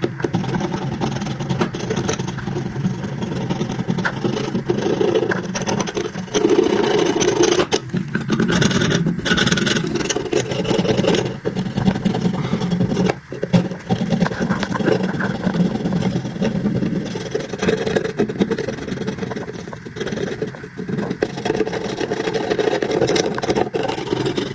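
Steel cleaver blade worked against an abrasive: a continuous scraping, rubbing sound with an underlying whir that rises and dips in level throughout.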